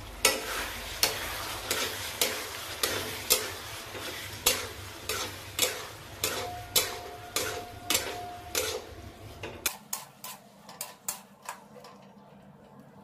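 Metal spatula knocking and scraping against a metal kadai as cubed potatoes and paneer are stir-fried in spice masala, over a steady frying sizzle. The strokes come about one every half second, quicken for a moment a little before the end, then stop, leaving a quieter sizzle.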